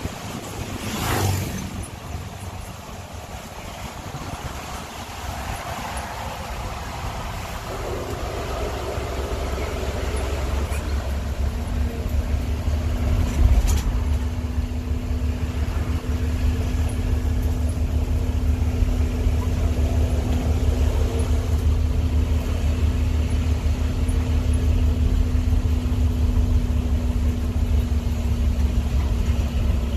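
A bus running along a road, heard from aboard: a low engine and road rumble that grows louder over the first dozen seconds, then carries on with a steady engine hum. There is a brief whoosh about a second in, and a short sharp click about thirteen seconds in.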